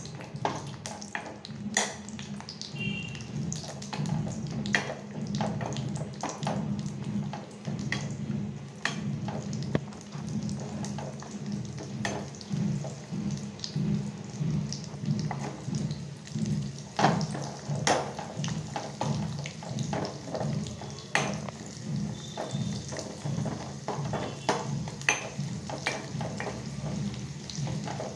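Cashews and raisins frying in ghee in a steel kadai: a steady sizzling, bubbling sound with scattered sharp clicks, and a steel spoon stirring and scraping against the pan now and then.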